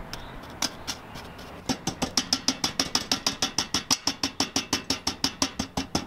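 Rapid, even knocking on the side of a metal 5-gallon bucket, about five knocks a second from roughly two seconds in. The knocking agitates the freshly poured refractory cement inside so that it settles level.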